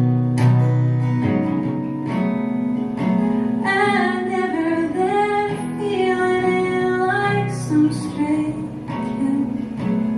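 Live song: strummed acoustic guitar chords with a woman singing. Her voice comes in clearly in the middle, holding and bending notes for a few seconds, over the steady strumming.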